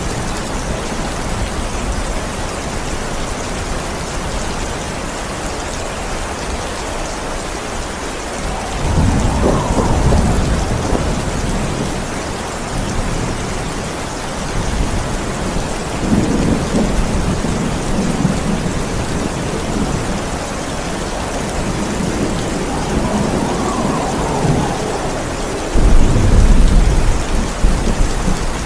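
Steady heavy rain with rolls of thunder: low rumbles swell about a third of the way in, around the middle, and again later, and the loudest, sharpest thunder bursts in near the end.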